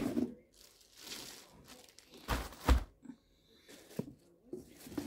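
Plastic packaging crinkling and cardboard rustling as parts are lifted out of a box, in several short bursts, with a dull thump about halfway through and a sharp click a little later.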